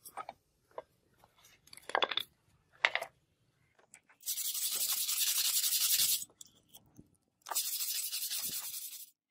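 A stiff brush scrubbing vinegar-softened rust off a steel sword blade, in two long bouts of rapid strokes, the second starting about a second after the first stops. Before that, a few brief handling noises as the blade is moved in the liquid.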